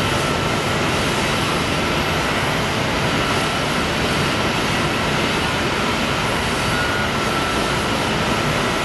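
Jet airliner engines running at low taxi power: a steady rushing noise with a thin, constant high whine.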